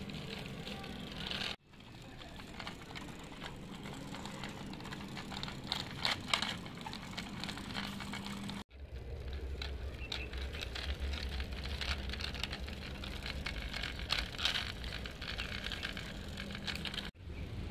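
Small wheels of a diecast model coach rolling over rough concrete as it is pushed by hand: a steady gritty crackle. The sound drops out abruptly twice, and a low steady rumble runs under it in the second half.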